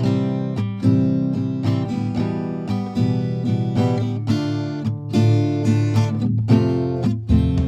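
Background music: acoustic guitar strumming and picking chords with a regular beat, starting abruptly.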